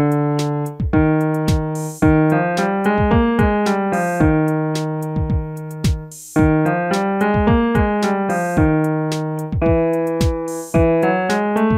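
Piano playing a five-note scale exercise, stepping up and back down, repeated about every two seconds for a singer to trill along to.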